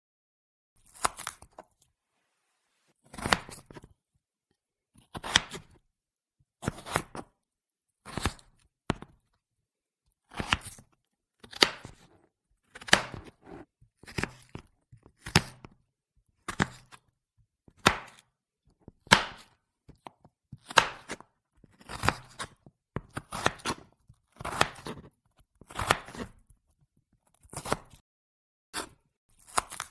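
Vegetables being chopped with a knife: about twenty separate chops or short runs of cuts, one every second or so, with silence between them.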